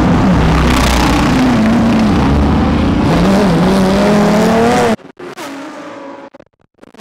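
GT3 race car engine running loudly in the pit lane, its pitch wavering and then climbing over the last couple of seconds. The sound cuts off abruptly about five seconds in, leaving only faint, scattered sounds.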